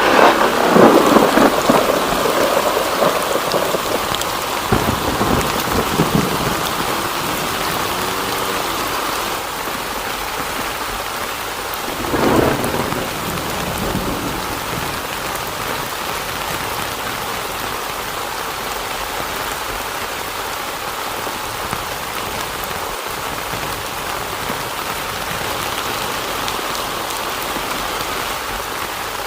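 Heavy rain falling steadily, with rumbles of thunder: the loudest right at the start, and another about twelve seconds in.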